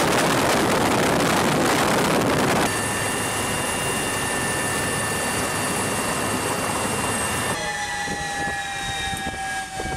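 Military helicopter heard from inside its open-door cabin: a loud, steady rush of wind and rotor noise with a high turbine whine. The sound changes abruptly twice. After the second change, a whine falls slowly in pitch and a few clicks are heard.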